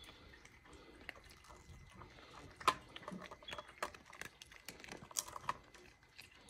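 Small dog chewing and crunching hard dog treats, with irregular quiet crunches and clicks, the sharpest one about two and a half seconds in.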